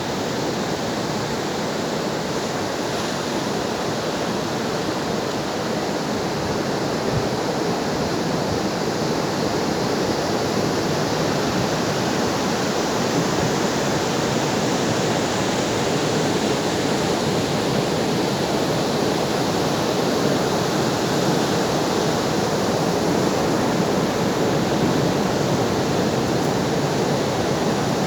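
Ocean surf: a steady wash of breaking waves, getting a little louder about halfway through.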